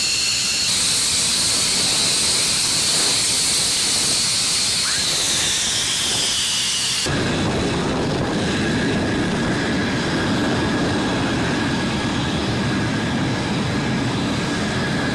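Turbofan engines of taxiing fighter jets. First an F-15's high turbine whine slowly falls in pitch. At a cut about seven seconds in, the sound gives way to a lower, rougher jet rumble from taxiing F-22 Raptors, with a thin steady high tone over it.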